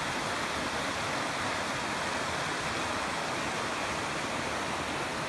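Rocky stream running over stones and small cascades: a steady rush of water.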